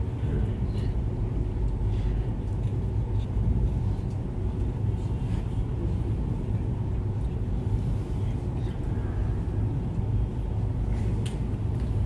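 Steady low rumble and hum of background room noise, with a few faint clicks, during a pause in the prayer recitation.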